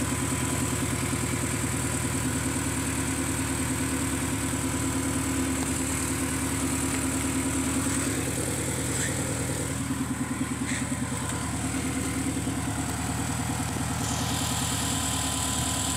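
Acura Integra's B18B1 1.8-litre DOHC four-cylinder engine idling steadily, freshly fitted with a new timing belt, water pump and oil pump.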